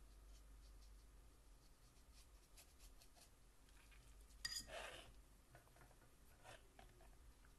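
Near silence: room tone with faint small taps, and a brief click followed by a short rustle about four and a half seconds in.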